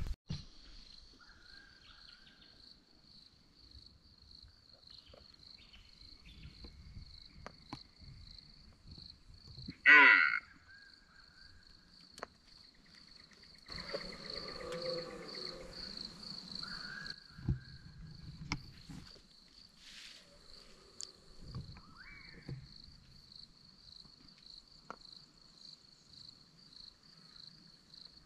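Bush insects trilling in a steady, pulsing high note throughout, with faint rustling. A short, loud sound about ten seconds in and a brief noisier stretch a few seconds later stand out above it.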